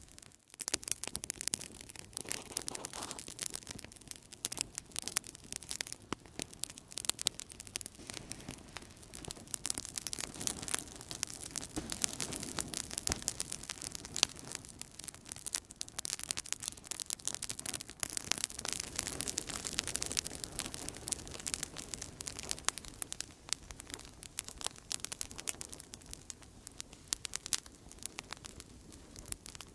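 Outdoor campfire crackling steadily, with dense, irregular pops and snaps over a soft low rush of burning. The sound briefly cuts out just after the start.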